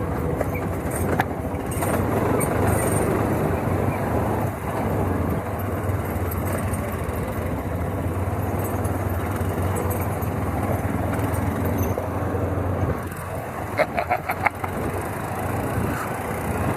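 Motor vehicle engine running steadily while driving, with road and wind noise. Near the end comes a quick series of short pitched beeps.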